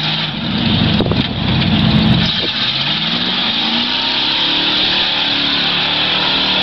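Lifted pickup truck's engine revving hard as its wheels spin through deep mud, with a loud surge about half a second to two seconds in, then holding high revs with the pitch climbing.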